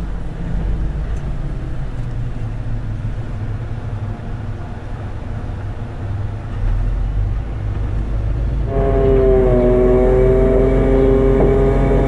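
Mercedes-Benz Actros truck driving along a winding road, heard from inside the cab as a steady low engine and road drone. About nine seconds in, a steady higher tone with overtones comes in over the drone and stays.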